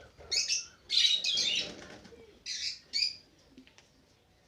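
White doves flapping their wings inside a cage in several quick bursts over the first three seconds, then settling to faint ticks.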